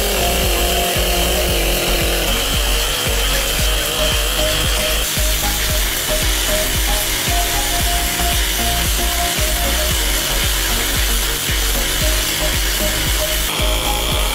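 Abrasive rail saw cutting through steel railway rail: a loud, steady grinding whine, with music over it.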